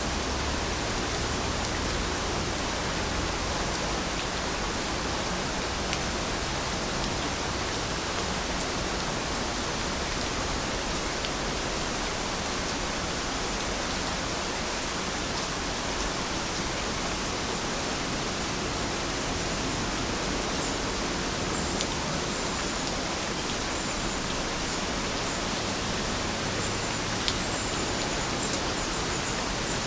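Steady rain falling: a dense, even hiss with a few faint drop ticks and one sharper tick near the end.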